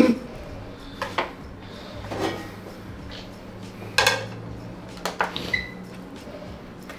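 Kitchen utensil clatter: a few separate knocks of knife, pan and board on the worktop. The loudest comes about four seconds in, as a frying pan is set down on a digital kitchen scale, and a short beep follows soon after.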